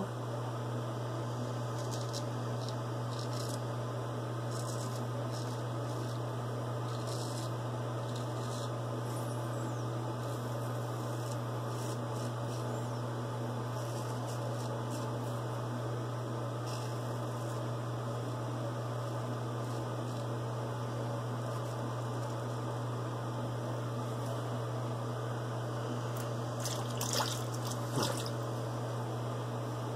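Steady low hum under faint scraping of a straight razor across lathered stubble. Near the end, a couple of small splashes as lather is flicked off the blade into sink water.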